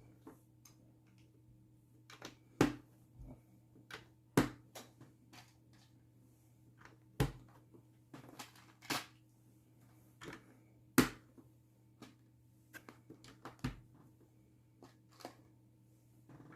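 Lego bricks being handled and pressed together: irregular plastic clicks and taps, a few of them sharp, over a faint steady hum.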